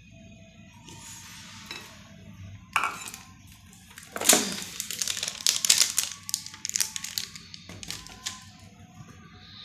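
Kitchen containers being handled, a plastic casserole lid among them: a knock about three seconds in, then a run of quick clicks and clatters through the second half.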